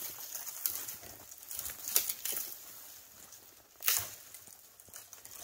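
Boots crunching in deep snow and clothing brushing through snowy brush, in an uneven string of crunches, the loudest about two seconds in and near four seconds.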